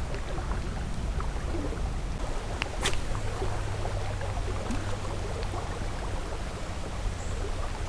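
Steady rush of a swollen, fast-moving creek with rain falling on the water, and a sharp tick about three seconds in.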